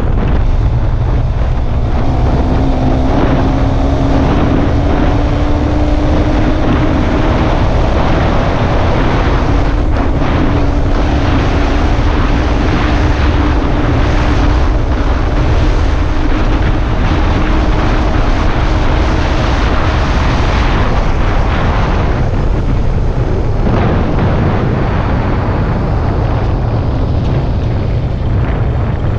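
A vehicle on the move: a loud, steady low rumble with a faint engine note that climbs slowly over the first twenty seconds or so.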